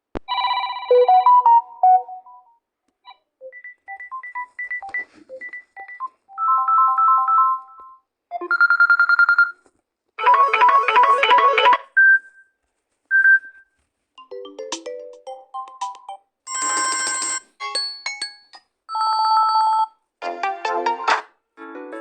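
Samsung Galaxy Tab A8 ringtones played one after another, a dozen or so short melodic snippets of a second or two each, each with a different tune and timbre, separated by brief gaps.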